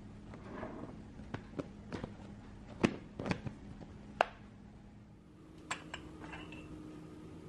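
Gold lid of a glass instant-coffee jar being handled: a series of sharp clicks and taps, the loudest about three seconds in and again just after four seconds.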